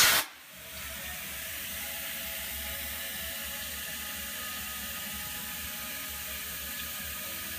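A compressed-air blow gun blast cuts off just after the start. Then comes a steady hum with faint steady tones from the Fehlmann Picomax 56 CNC milling machine, its machining cycle finished.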